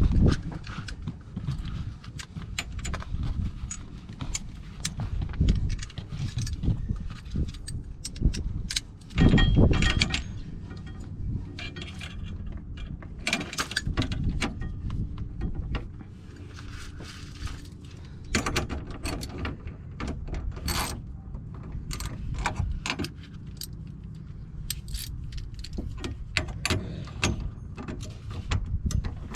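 Metal hand tools and parts clinking and rattling, with irregular sharp knocks and one louder clatter about nine seconds in, as work goes on under a car.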